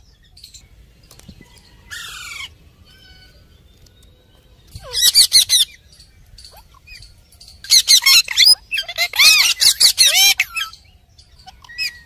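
Red-breasted parakeet calling: a short rising call about two seconds in, then loud bursts of rapid, harsh squawking chatter around five seconds in and again from about eight to ten and a half seconds.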